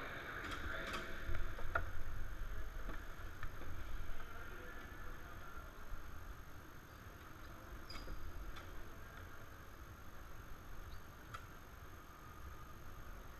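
Onboard noise from an electric go-kart on an indoor track: a low rumble and a haze of hall noise with no engine note. It is busier in the first few seconds and quieter after, with a few sharp clicks scattered through.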